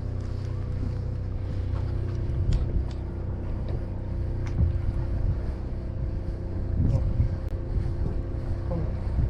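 A boat's engine running steadily, a low rumble with a steady hum, with wind buffeting the microphone and a few faint clicks.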